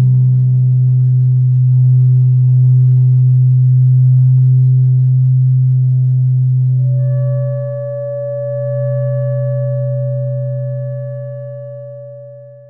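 Steady pitched soundtrack drone: a loud low hum held throughout with fainter higher tones above it, joined about seven seconds in by a clear higher tone, then fading out near the end.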